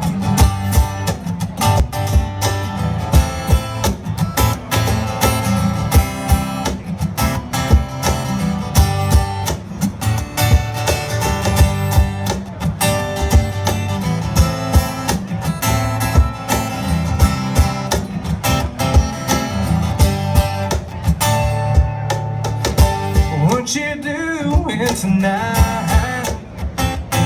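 Live country band playing an instrumental intro, guitars over bass with sharp drum hits keeping a steady beat, heard loud through a concert sound system.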